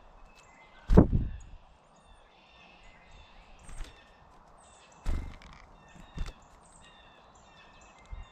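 Several loud, deep knocks or thumps close to the microphone, the loudest about a second in and two more near five and six seconds, over faint high chirps and short calls of small songbirds.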